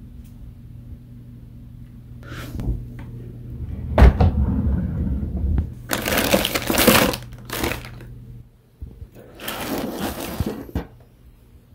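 Hands rummaging in a bathroom drawer, crinkling and rustling plastic-wrapped pads and packaging, in two loud spells, with a low thump about four seconds in.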